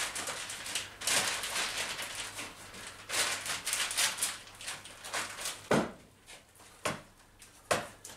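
Plastic steam-bending bag crinkling and rustling as it is handled on a workbench, followed by three sharp knocks about a second apart near the end.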